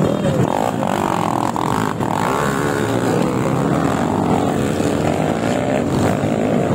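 Several dirt bike engines running together, their pitch rising and falling as the riders work the throttle along a dirt trail.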